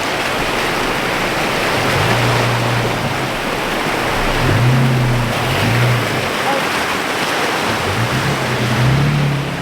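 Off-road 4x4 engine revving in short spells, rising and falling several times, as it works over a rocky trail, under a steady rushing noise.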